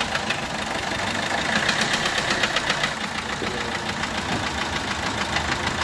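Peugeot 1.3 HDi four-cylinder diesel engine idling with a steady, rapid clatter. The sound is the sign of lost compression on the fourth cylinder, where a bent valve no longer closes fully.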